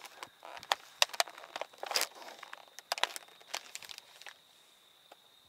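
Plastic food packaging from a Lunchable meal kit crinkling and crackling as it is handled, in quick irregular clicks for about four seconds, then it stops.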